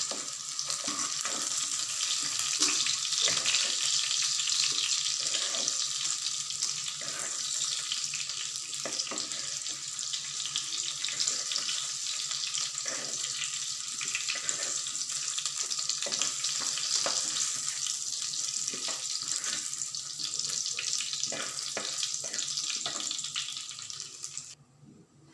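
Small onions, garlic and whole spices frying in sesame oil in a pan: a steady sizzle broken by frequent short knocks and scrapes of stirring. It cuts off near the end.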